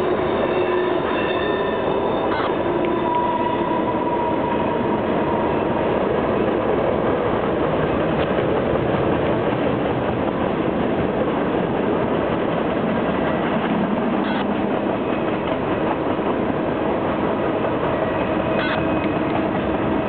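Freight cars of a long mixed freight train rolling steadily across a trestle bridge: a continuous rumble of wheels on rail, with faint squealing tones over the first few seconds.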